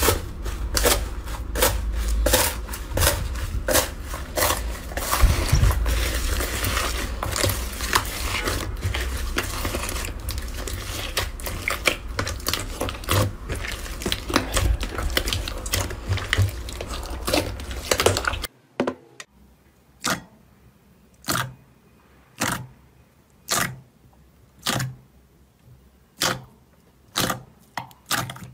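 Hands kneading slime packed with foam beads: dense, continuous crunching and crackling. About two-thirds of the way in it changes to separate popping clicks, roughly one a second, as fingers press into a bowl of glossy green slime.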